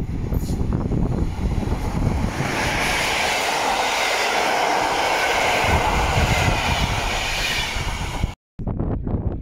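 PKP Intercity passenger train hauled by an electric locomotive passing close at speed. Low wind noise on the microphone is joined about two seconds in by the loud rush of the coaches' wheels and air, which cuts off abruptly near the end.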